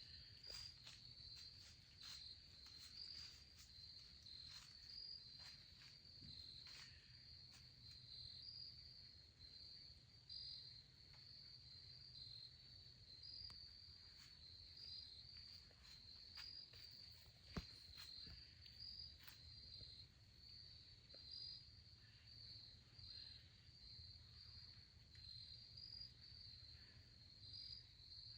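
Faint, steady chorus of insects trilling, a continuous high pulsing trill. Scattered soft clicks sound over it, with one sharper click a little past halfway.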